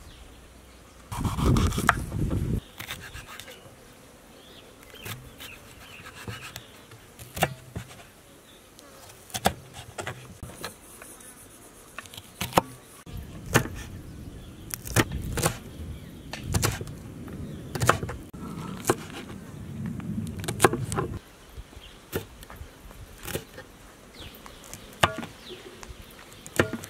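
Kitchen knife cutting a red bell pepper and green chilies on a wooden chopping board: irregular, scattered sharp knocks of the blade on the wood. A low buzz comes and goes, loudest about a second in and again through the middle stretch.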